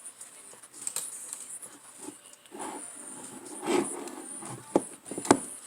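Handling noise as multimeter test leads and a transmission solenoid are picked up and set in place: rustling with a few sharp clicks and taps, two of them near the end, the last the loudest.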